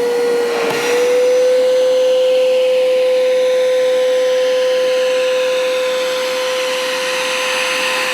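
Hoover Power Scrub Deluxe FH50150 upright carpet washer running over carpet. Its motor holds a steady whine over a rush of suction air, and the pitch dips briefly and recovers a little under a second in.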